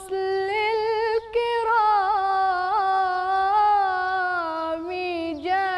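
A young female voice singing Islamic devotional chant (inshad) unaccompanied, in maqam Rast. She draws out long held notes with wavering melismatic ornaments and takes a brief breath about a second and a half in.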